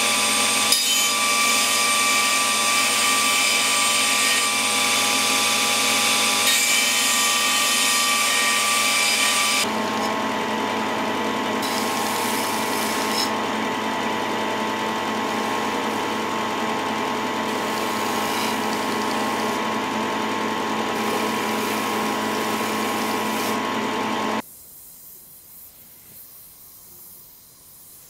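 Belt grinder running with a steel knife blade held against the abrasive belt over the contact wheel: a steady grinding hiss with a ringing whine from the machine, its tone shifting about ten seconds in. It cuts off suddenly near the end, leaving only a faint hiss.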